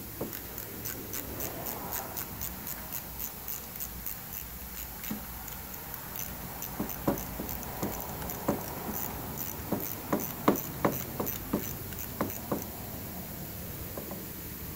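Ratchet wrench clicking steadily, about three clicks a second, while a bolt is backed out of an engine's front timing cover. In the second half come a run of louder, sharper metal clinks.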